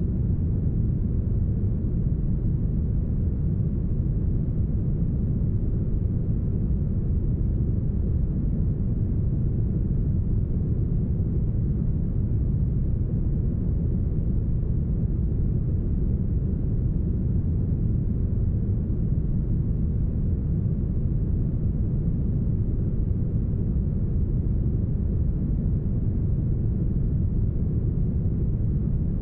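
Deep, smoothed brown noise: a steady, even rumble weighted heavily to the low end, with almost nothing above the midrange and no change throughout.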